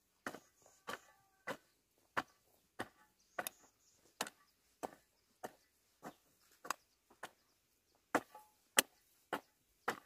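Steady rhythmic chopping: about sixteen sharp knocks, one roughly every two-thirds of a second, with a brief pause a little past the middle.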